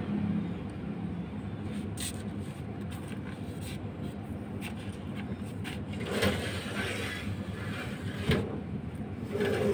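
Cloth rustling and handling noise as a kitten's leg is wrapped, over a steady low background rumble, with a sharp knock a little after eight seconds.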